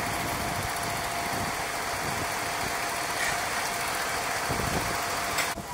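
Small engine of a walk-behind tiller running steadily. A thin steady tone rides over it and cuts off just before the end.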